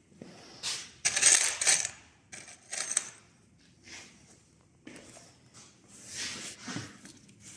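Loose metal wood screws clinking and rattling together as they are handled, in several short bursts, loudest about a second in.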